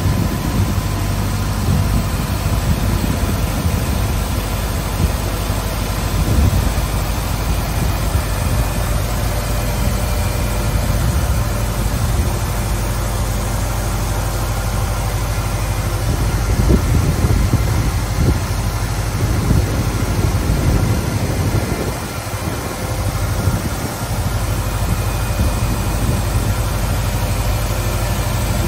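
Weinig Hydromat 22 AL four-sided planer running: a steady machine hum with several held tones over a rushing noise. It swells a little about two-thirds of the way in and eases briefly soon after.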